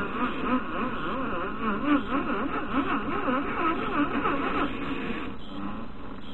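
RC4WD Gelande II 1:18 scale crawler's stock electric motor and gears whining, the pitch swooping up and down quickly with the throttle as the tipped-over truck struggles, stopping about five seconds in.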